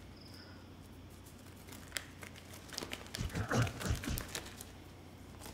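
A blue disposable rubber glove being pulled out of a pocket and worked onto a hand: rubbery crinkling and rustling with small clicks, busiest about three to four seconds in.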